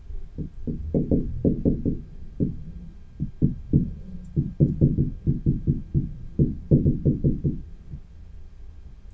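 Felt-tip marker writing on a whiteboard: a quick run of short, dull taps and scrapes, one for each stroke of the handwritten Japanese characters, with a brief pause near the middle. The strokes stop about a second and a half before the end.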